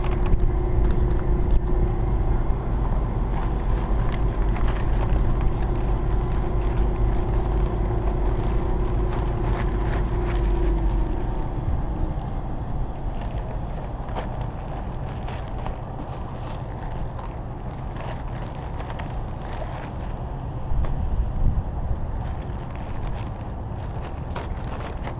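Plastic bags and paper manuals crinkling and rustling as they are handled, over a steady low machine hum with a droning tone that stops about twelve seconds in.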